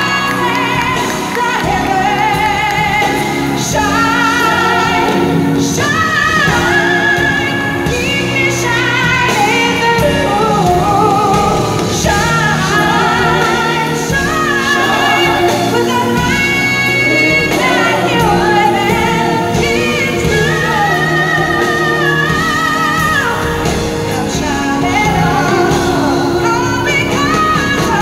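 Live singing over a band with piano: voices hold long notes with wide vibrato, sometimes together, in a large hall.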